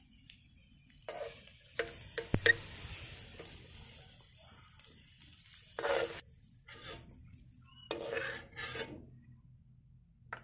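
Taro root slices sizzling as they fry in hot oil in an aluminium kadai, while a metal ladle clinks and scrapes against the pan as slices are added and stirred. A few sharp clinks come about two seconds in, and short scraping strokes come near six and again near eight and nine seconds.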